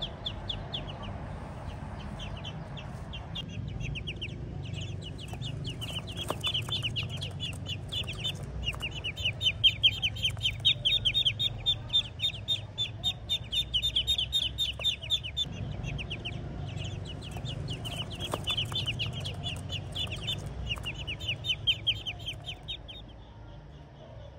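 A group of ducklings peeping in rapid, high-pitched trains of short calls. The calls are loudest in the middle and stop shortly before the end.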